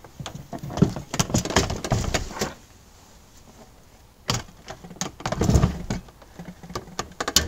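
Metal legs and frame of a Tentbox KitchenBox camp kitchen clattering and knocking as the unit is tipped on its side and the legs are folded in: a burst of rattling knocks, a pause, a single knock, then more knocks and quick clicks near the end.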